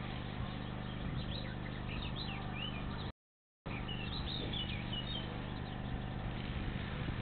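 Small birds chirping, short high calls in two clusters, over a steady low hum and background noise from an outdoor camera microphone. The sound cuts out completely for about half a second about three seconds in.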